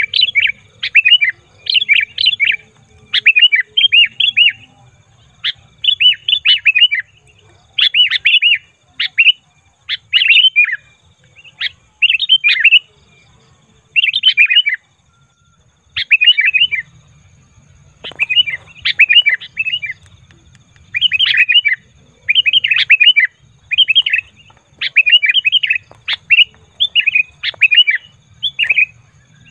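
Sooty-headed bulbul calling noisily: short bursts of bright chattering notes, about one burst a second, with a brief pause about halfway through.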